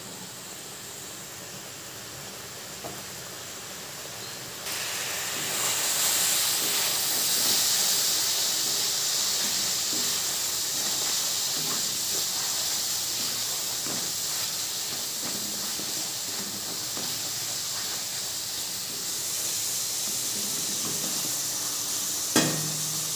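Sun-dried mango pieces in a mustard-curd and jaggery sauce sizzling and bubbling in a steel kadai, a steady hiss that gets louder about five seconds in. One sharp knock near the end.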